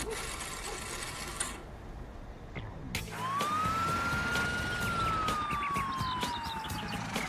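Cartoon siren sound effect: a single tone that rises quickly about three seconds in, then slowly falls in pitch over the next four seconds, after a short noisy burst at the start.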